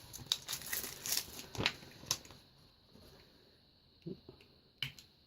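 Plastic toy packaging crinkling and clicking as it is handled and unwrapped by hand, busiest in the first two seconds, then a few soft clicks near the end.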